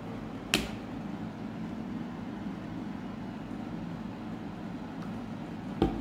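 A steady low hum, like a fan or air conditioner, with two short sharp taps, one about half a second in and one near the end.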